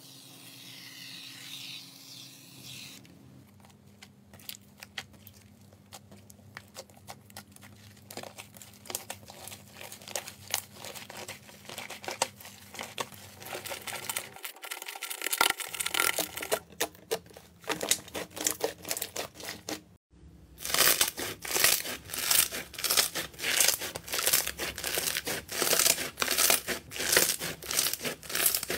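Shaving foam hissing out of an aerosol can onto clear slime. Then hands knead the foam-mixed slime with a dense run of small sticky clicks and pops. After a break, hands press and squeeze a thick fluffy slime, making loud sticky clicks about twice a second.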